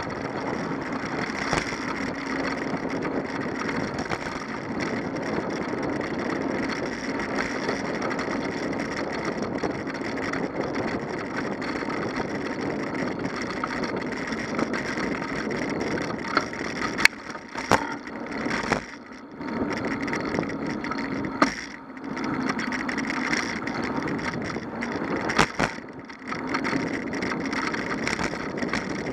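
Steady wind and rolling noise from a camera on a moving bicycle, with several sharp knocks and brief drops in the noise in the second half.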